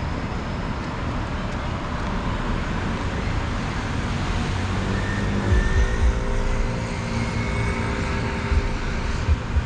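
Road traffic: a steady wash of passing cars, with one vehicle's engine note coming up about halfway through and fading out near the end.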